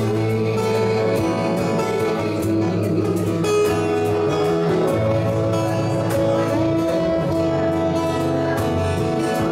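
Live acoustic band playing an instrumental passage without singing: acoustic guitars with an upright double bass holding long low notes.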